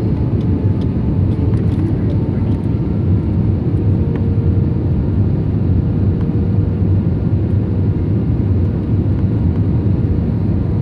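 Steady low rumble of an Airbus A320's engines and rushing airflow, heard inside the cabin during the approach to landing, with a faint constant hum riding above it.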